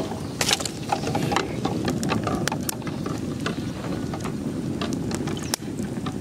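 Hens' eggs clicking and knocking against each other and against a plastic egg tray and an aluminium pot as they are handled, with water swishing as a hand moves them around the pot. A steady low rumble runs underneath.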